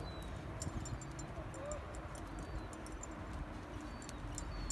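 Outdoor ambience: a steady low rumble of wind on the microphone, with scattered faint clicks and a few faint, short high chirps.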